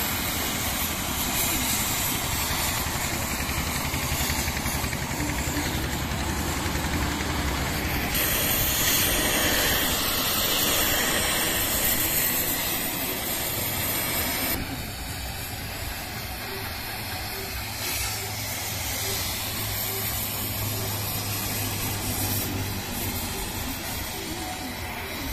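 Oxy-fuel cutting torch hissing steadily as it cuts into the steel pin boss of a JCB 3DX backhoe bucket, throwing sparks, to remove the worn pin bush. The hiss is loudest for a few seconds in the middle. An engine runs low underneath.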